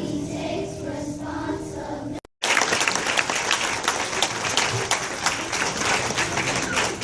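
A children's choir singing, cut off about two seconds in; then an audience applauding, a dense clatter of many hands clapping.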